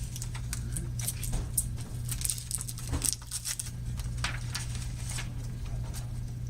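A steady low hum with scattered light clicks and rustling.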